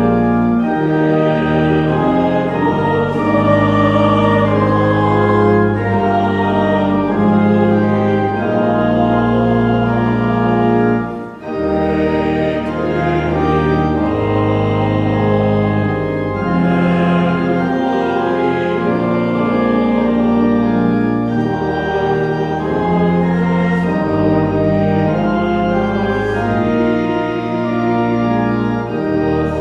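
Church organ playing a hymn in sustained chords, with voices singing along. There is a brief break between phrases about eleven seconds in.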